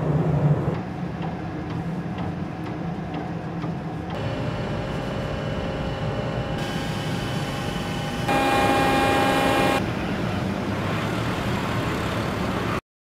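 Steady machinery hum and wind-like noise of a ship and boat at sea, changing with each cut. A louder stretch of steady whining tones comes about eight seconds in and lasts a second and a half. The sound cuts off suddenly near the end.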